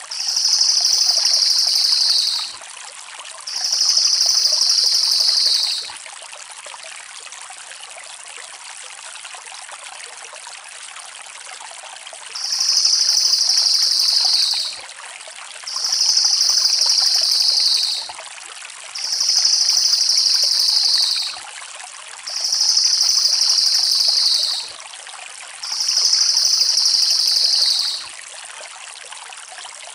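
Crested jay (cililin) giving long, rapid rolling trills, each about two seconds and falling slightly in pitch. There are two trills, a pause of about six seconds, then five more in steady succession, over a constant hiss.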